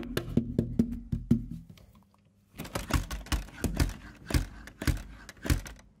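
Irregular clicks and knocks, then after a short pause a run of low thumps about every half second.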